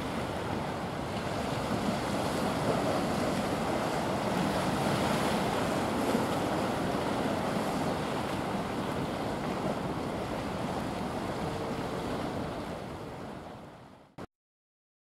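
Steady rushing of wind and sea waves, with wind noise on the microphone; it fades out near the end.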